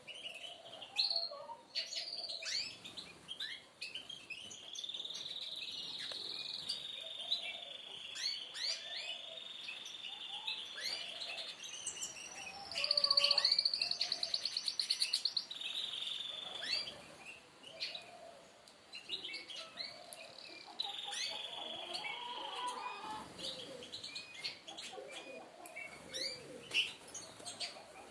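Several songbirds chirping and singing, with many short quick chirps and long sustained trills. About halfway through comes a loud, rapid buzzing trill. Under them runs a low cooing repeated about once a second, as from doves.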